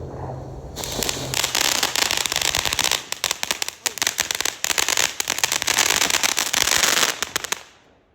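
Firecrackers going off in a rapid, dense crackle of sharp pops. The crackle starts about a second in and thins out and dies away near the end.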